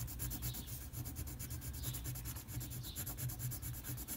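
Pencil scratching quickly back and forth on paper in short repeated strokes, shading a drawing's dark area solid.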